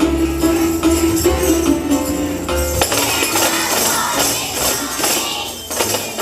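Tambourines jingling over a pitched musical backing. The backing notes stop about three seconds in, while jangling noise carries on and fades toward the end.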